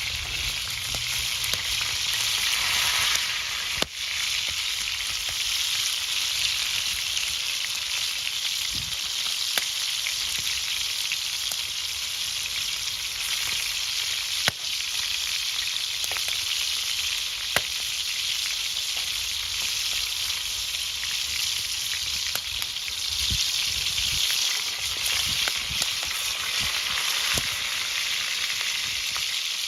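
Food frying in hot oil in a pan: a steady sizzle with a few sharp pops.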